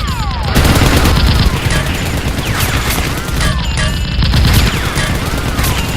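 Rapid gunfire sound effects: a dense, continuous volley of shots, loudest early on, with repeated falling whistle-like tones over it.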